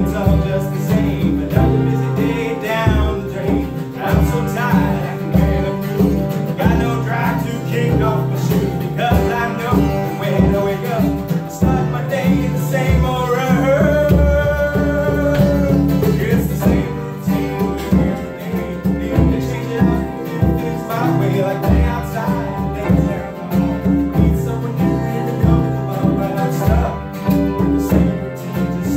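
Live acoustic guitar strumming a country-style song while a man sings, with a djembe hand drum keeping a steady beat underneath. A long held sung note comes about halfway through.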